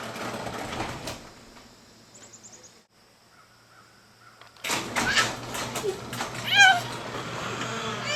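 Electric garage door opener running with a steady low hum and rattling clicks from about halfway through, while a toddler lets out several high, excited squeals over it.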